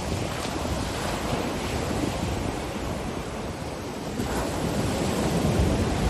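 Ocean surf with wind: waves breaking and washing up a sandy beach as a steady rushing noise. The surf grows louder from about four seconds in as the next wave comes in.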